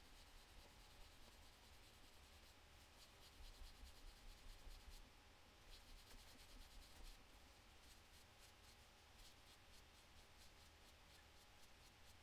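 Faint, quick back-and-forth rubbing on a Street Sharks action figure's plastic and rubber as it is scrubbed clean with alcohol, the strokes a little harder for a few seconds in the middle.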